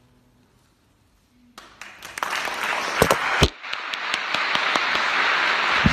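A faint last piano note dies away, then audience applause breaks out about a second and a half in and builds to a steady level. Two loud thumps close to the microphone come near the middle.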